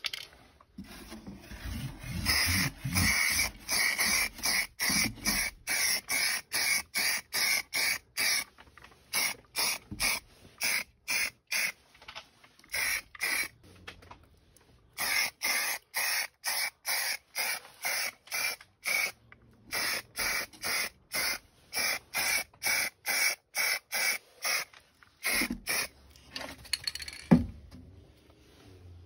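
Aerosol can of Rust-Oleum spray paint spraying in many short, quick bursts of hiss, about one to two a second, with a couple of brief pauses. A single sharp knock comes near the end.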